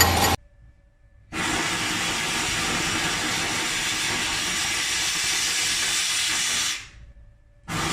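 A steady hiss starts abruptly, runs for about five seconds and fades out, then starts again near the end. A running machine cuts off just before it.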